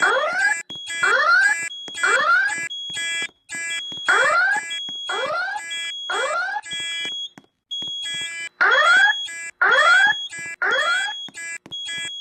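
School fire alarm evacuation system sounding its alarm tone between voice messages. Rising whoops come in groups of three about a second apart, with a pause after each group. Under them runs a rapid, high-pitched pulsing beep.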